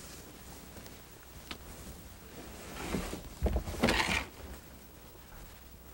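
Clothing rustling and a few soft, low thumps of an elderly man being helped to his feet and stepping across a wooden floor. The thumps and rustling come loudest about three to four seconds in, after a faint click.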